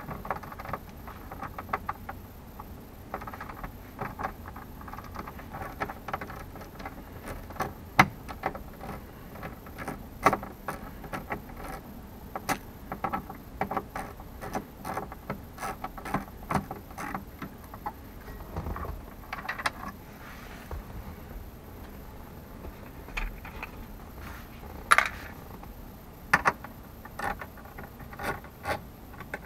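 Small hand ratchet clicking in short runs as it backs out the little bolts holding a dashboard instrument cluster, with a few sharper metal clinks among them.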